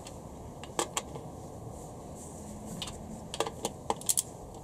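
Ratchet of a torque wrench clicking as it swings back and forth, in scattered sharp clicks, some in quick pairs, while the conrod bolts are drawn down evenly toward 44 Nm.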